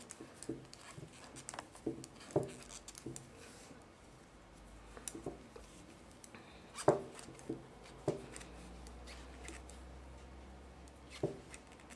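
Knitting needles clicking and tapping irregularly as stitches are knitted, with a few louder clicks scattered through.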